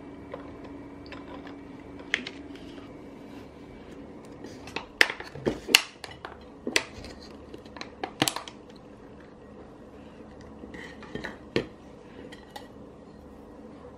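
A clear plastic dessert tub being handled and its lid opened on a ceramic plate: a run of sharp plastic clicks and light knocks, most of them bunched about five to eight seconds in, with a few more near eleven seconds.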